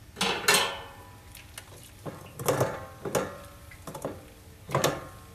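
Metal utensils knocking against the wall of a stainless steel mash tun, with a handful of clanks that each ring briefly, two close together near the start.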